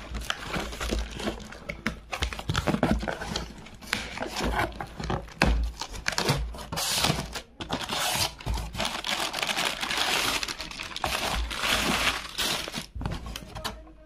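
Cardboard packaging and plastic wrap being handled: box flaps pulled open and plastic sheeting crinkling and rustling as a wrapped speaker is lifted out, with a few dull handling bumps. The rustle grows denser for a few seconds past the middle.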